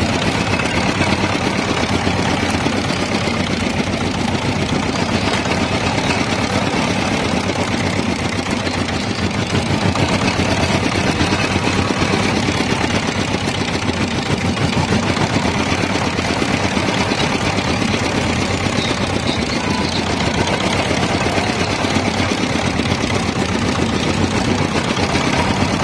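Small engine running steadily with a fast, even pulse, driving a belt-driven sugarcane juice press whose steel rollers are crushing cane.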